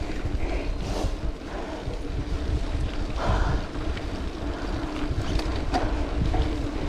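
Wind buffeting the camera microphone over the low rumble of mountain-bike tyres rolling on a dirt forest road, with faint scattered clicks and rattles from the bike.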